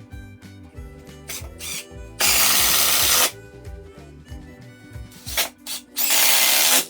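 Power drill running in two main bursts of about a second each, with short blips of the trigger before each, over background music.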